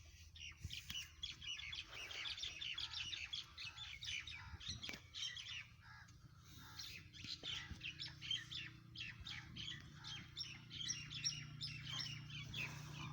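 A flock of small birds chirping and chattering, many short rapid calls overlapping throughout, with a low steady hum coming in underneath in the second half.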